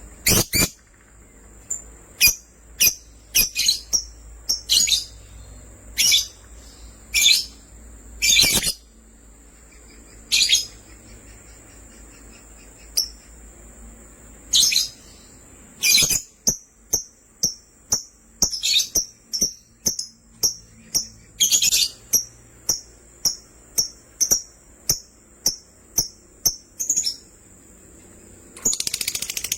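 Pet lovebirds chirping with sharp, high chirps. They come scattered at first, then in a rapid, regular run of about two a second through the second half, breaking into a dense, fast chatter near the end.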